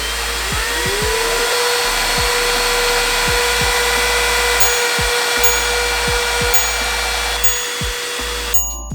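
Cordless handheld car vacuum cleaner running: its motor whine climbs to a steady pitch in the first second or so over rushing air, then cuts off about half a second before the end.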